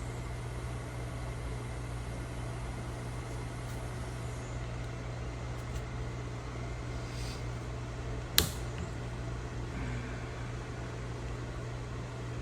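Steady low machine hum in the background, with a single sharp click a little over eight seconds in as a snap ring is worked out of a transmission cooler thermostat housing.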